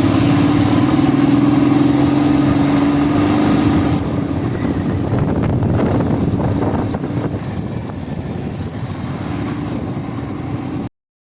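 Royal Enfield motorcycle engine running with a steady hum that rises slightly over the first few seconds, mixed with road and wind noise. The sound cuts off abruptly near the end.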